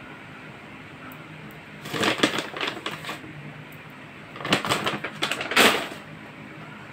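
Airsoft BBs poured from a plastic bag into a palm and jiggled in the hand, with the bag rustling: two bursts of quick clicking and rattling, about two seconds in and again around five seconds in.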